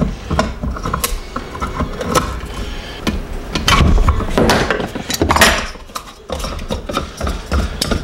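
Irregular clicks, knocks and scraping of tools and pump parts being handled as a Hayward Super Pump's impeller is unscrewed, the motor shaft held still with pliers. The loudest clatter comes about four to five seconds in.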